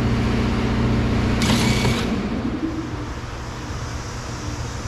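Steady low mechanical hum, like an engine running, that drops away about two seconds in, with a short hiss just before it.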